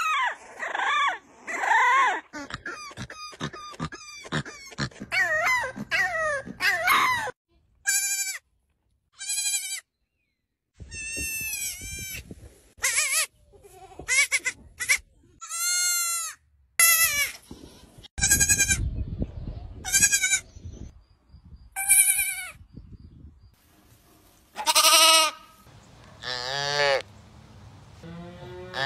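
A French bulldog puppy yipping and howling in quick, sliding calls for the first seven seconds or so. Then a goat kid bleating: a dozen or so separate high bleats, each about a second long, with short gaps between them.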